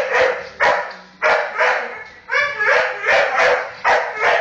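Staffordshire bull terrier barking over and over, about two barks a second, with a higher yelp about halfway through. The dog is barking at the hoover, which he hates.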